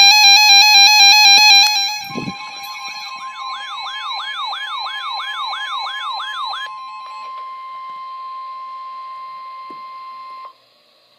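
NOAA Weather Radio alert tones. A loud electronic warbling burst lasts about two seconds. Then comes the steady 1050 Hz warning alarm tone, held for about eight seconds before it cuts off. For a few seconds in the middle, a siren-like wail rises and falls over it, about three times a second.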